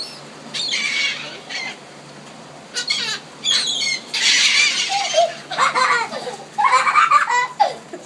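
Gulls beating their wings close by and squawking as they swoop in to snatch food from an outstretched hand, with a child's squealing laughter in the second half.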